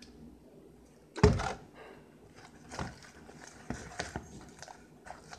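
A plastic saline-solution bottle set down on a wooden table with a loud thunk about a second in, then scattered soft clicks and squishes of thickening glue-and-saline slime being stirred and worked by hand in a plastic bowl.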